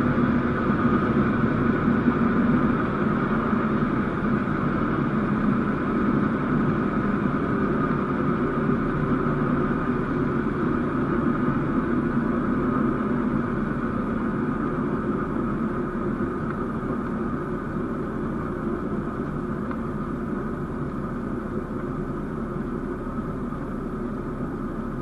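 Cessna 172's piston engine and propeller running at low power, heard inside the cockpit as a steady drone that slowly gets quieter.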